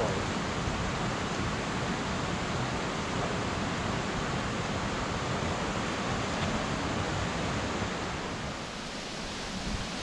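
Steady, even rush of falling water from a tall waterfall, with no break or change, easing slightly near the end.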